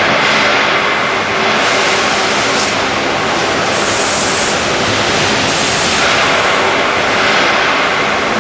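Automatic steel strapping machine running: a loud, steady mechanical noise with a few short hisses, about 2.5, 4 and 6 seconds in.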